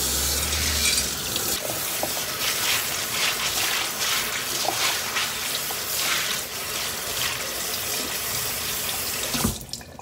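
Kitchen tap running into a stainless steel sink while a hand stirs azuki beans in a mesh strainer to rinse them, with small irregular clicks and splashes. The running water cuts off sharply near the end.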